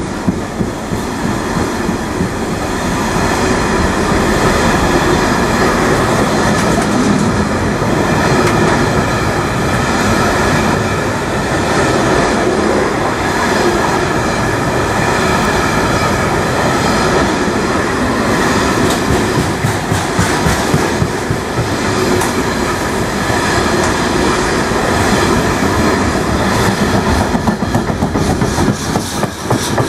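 Freight train of open box wagons passing close at speed: a loud, steady rumble of wheels on the rails with a rapid clickety-clack, the clicks coming more sharply near the end.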